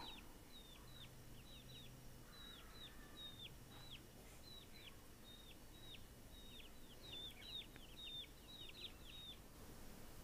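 Faint, rapid run of short, high peeps, each sliding down in pitch, from month-old deshi (native) chicks; the peeping stops just before the end.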